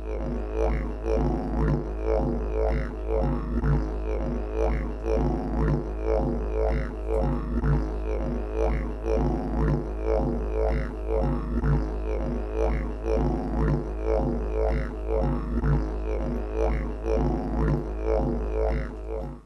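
Background music: a deep, steady droning note under a fast, even rhythmic pulse, with repeated falling sweeps in the tone.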